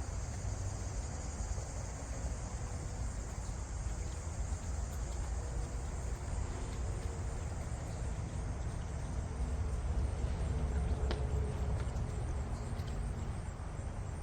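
Steady high trilling of crickets or other insects over a constant low rumble, with one faint click about eleven seconds in.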